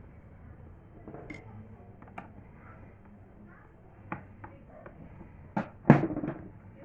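Scattered light clicks and knocks of hard objects being handled, with a sharp knock a little before the end as the loudest.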